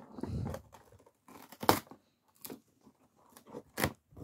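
Cardboard advent calendar door being torn and pried open: a rough rustle at the start, then several sharp rips and snaps, the loudest about halfway through.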